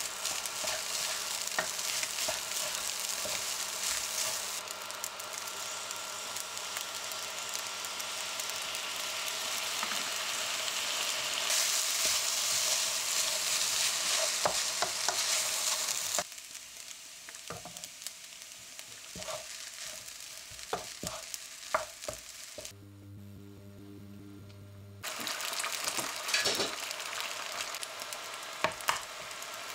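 Kimchi fried rice sizzling in a hot nonstick frying pan while a wooden spatula stirs it, with small scrapes and taps on the pan. About halfway through the sizzle drops away to a few clicks and a brief low hum, then an egg sizzles in a small frying pan near the end.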